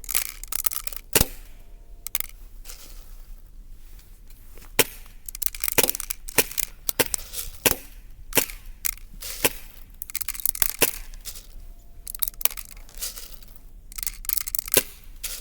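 Airsoft gun firing single shots, about a dozen sharp cracks at uneven intervals, some close together and some a second or more apart.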